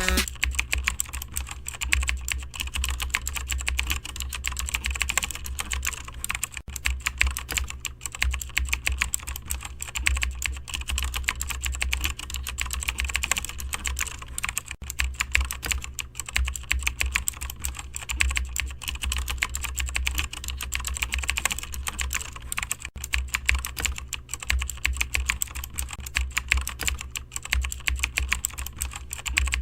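Rapid, continuous typing on a computer keyboard, many fast key clicks, over a steady low hum.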